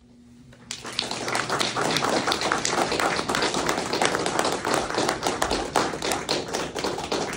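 Audience applauding, starting under a second in: a dense run of many hand claps.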